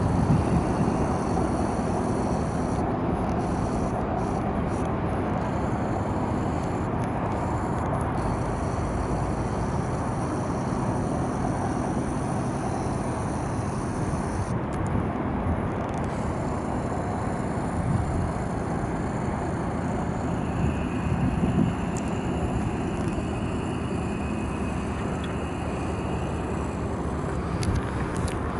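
Small fishing boat's engine running steadily as it motors past, under a constant rush of outdoor noise.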